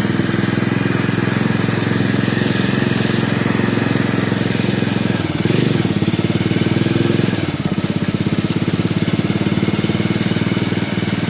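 Motorcycle engine running as the bike rides along. Its note swells and grows louder for about two seconds, starting around five seconds in, then settles back.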